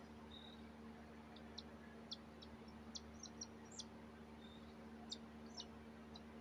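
Pet cockatiel giving faint, short high chirps, about a dozen scattered through, over a low steady hum.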